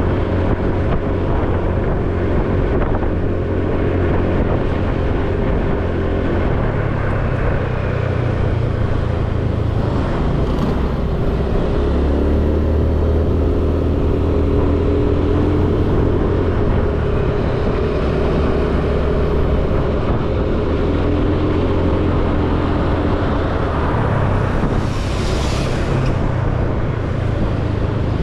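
A small motorcycle engine running steadily while riding, its hum shifting in pitch a few times as the speed changes, over road noise. A brief hiss comes near the end.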